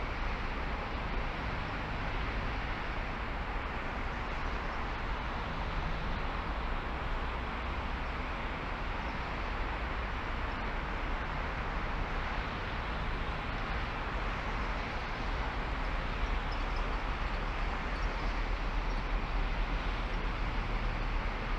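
Steady road and wind noise from a car being driven, holding an even level throughout.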